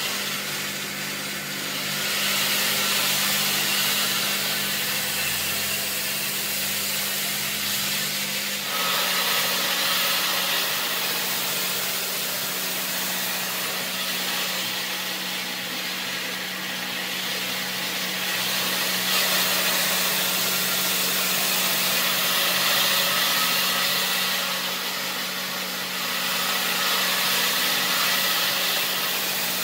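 Large diamond circular saw blade of a stone block cutter cutting into a stone block under a water spray: a steady motor hum under a broad hiss of spraying water and grinding stone. The hum shifts slightly in pitch about nine seconds in.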